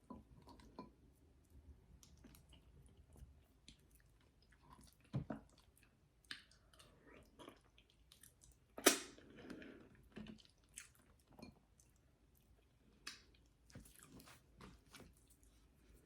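A person chewing a mouthful of egusi soup with fufu: soft, wet mouth sounds with scattered small clicks and smacks, and one sharper, louder one about nine seconds in.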